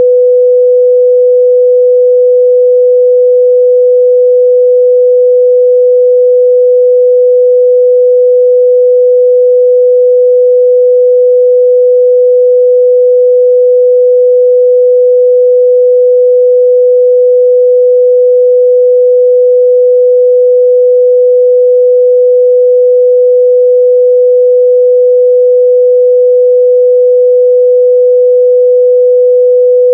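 Steady 497 Hz sine test tone, a single pure midrange pitch held without change.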